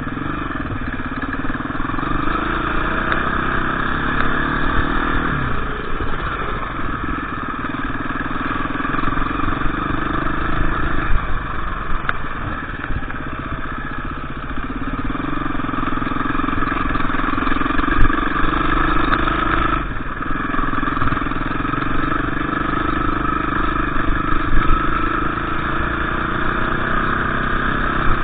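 KTM EXC 350 dirt bike engine running under load off-road, its pitch climbing and dropping back several times as the throttle opens and closes.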